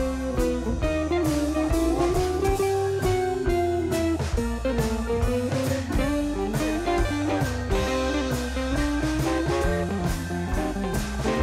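Background music: a blues-style guitar melody with sliding notes over a steady bass line and a drum kit beat.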